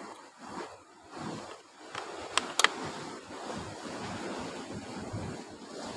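Sea surf washing in, a rushing noise that swells and eases, with two sharp clicks about two and a half seconds in.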